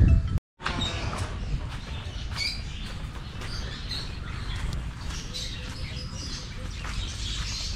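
Scattered short bird chirps over a steady low rumble, with a brief dropout of all sound about half a second in.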